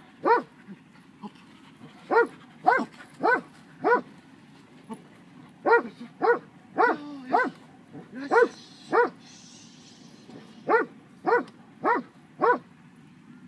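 A dog barking: sharp repeated barks in runs of two to four, about two a second, with pauses of a second or two between runs.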